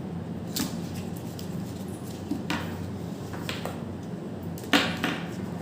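Handling noise as the neckband earphones and their packaging are taken out and moved about: a few short rustles and scrapes, the loudest near the end, over a steady low hum.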